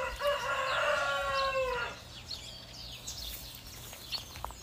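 A rooster crowing once, one long call of about two seconds that drops away at the end.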